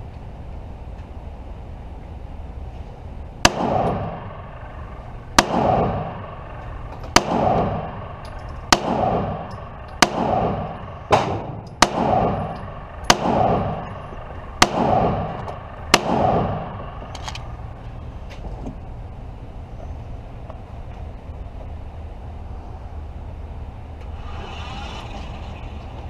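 About ten 9mm shots from a CZ TS2 pistol, fired at a slow, steady pace roughly one every one and a half seconds, each crack followed by a ringing echo, then the firing stops.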